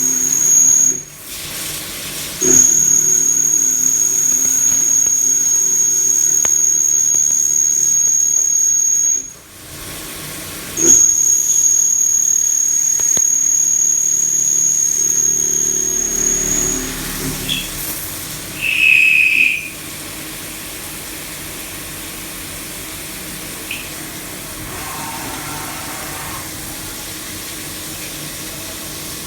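CNC milling machine thread-milling an M24 thread: a steady, high-pitched whine in three long stretches broken by short pauses, over a low machine hum. For roughly the last third it runs more quietly without the whine.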